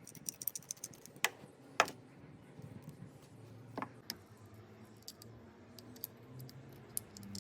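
Scattered light clicks and taps of small hard objects being handled, with sharper clicks about a second in, just after, and near four seconds, over a faint low hum.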